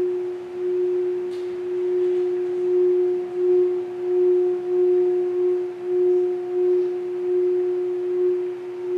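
Singing bowl held in one steady ringing tone by a mallet rubbed around its rim, with a fainter higher overtone. The tone swells and fades in a slow wobble a bit more than once a second.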